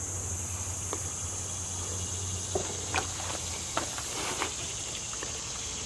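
Steady high-pitched drone of insects, with a few faint scattered clicks and taps of metal rifle parts being handled.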